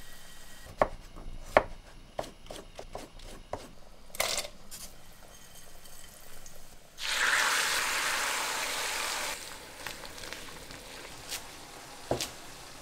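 Kitchen cooking sounds. A run of light taps and clicks comes first, then a loud, even hiss that lasts about two seconds midway, then two sharp knife chops on a plastic cutting board near the end as rucola is cut.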